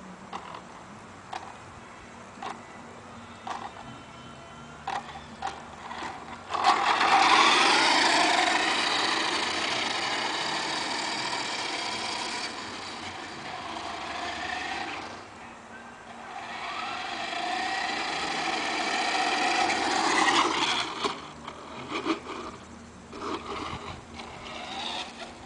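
A motor whining, its pitch rising and falling, starting suddenly about a quarter of the way in, dipping briefly near the middle and fading out past three quarters, with scattered clicks before and after.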